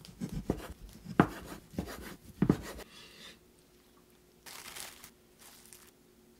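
Chinese cleaver chopping through a chicken breast onto a wooden cutting board: about five sharp knocks in the first three seconds. Two brief rustles follow later.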